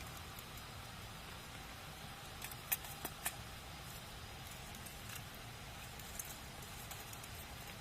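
Wood campfire burning with a steady low hiss and scattered sharp crackles, a quick cluster of three or four pops about three seconds in and a few fainter ones later.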